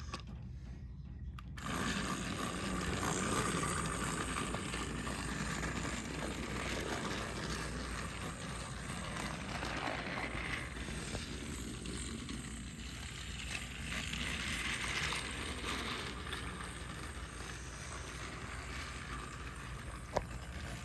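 Battery-powered Thomas & Friends Motorized toy engine (Percy) switched on about a second and a half in. Its small electric motor and gears then run steadily as it travels along the plastic track.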